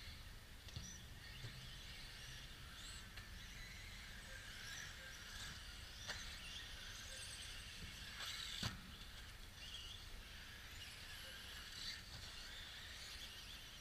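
Radio-controlled model cars racing, heard faintly: high motor whines rising and falling as they lap, with two sharp knocks about six and nine seconds in. A low wind rumble on the microphone runs underneath.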